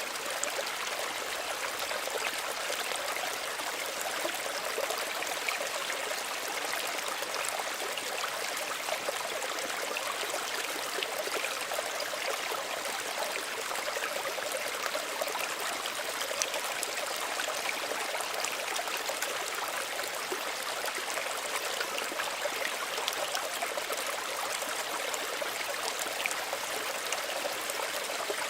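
Small stream running gently over stones, a steady babble and trickle of water with fine splashes and no letup.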